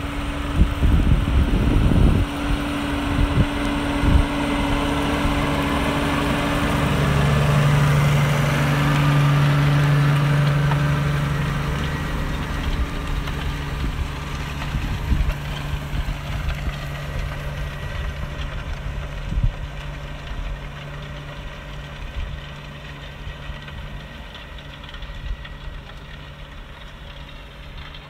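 A New Holland T7.230 tractor's six-cylinder diesel engine running steadily under load while it pulls a five-furrow plough. It grows loudest as it passes close by, about a third of the way in, and then fades as it moves away.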